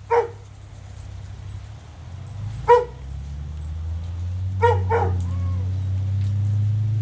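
A dog barking in short single barks: one at the start, a louder one in the middle, then a quick pair about five seconds in. A low steady hum builds underneath in the second half.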